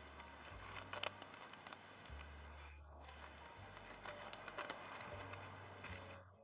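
Faint handling sounds of thread and fingers against a clear plastic ball, as a thread is laced up and down through tatted lace and pulled tight: soft scattered clicks and rustles, busiest about a second in and again past the middle.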